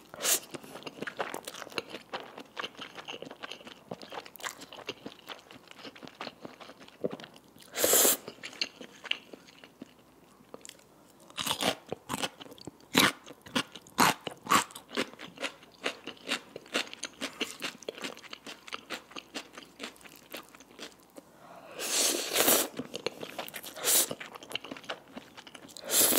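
Close-miked eating: spicy cheese stir-fried noodles slurped in loud bursts about 8 seconds in, twice around 22 to 24 seconds, and again at the end. Wet chewing and sharp mouth clicks come in between.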